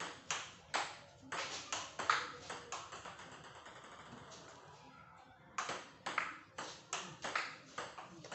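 Table tennis rally: the ball clicking off the bats and bouncing on the table, about two to three clicks a second, with a pause of about two and a half seconds in the middle.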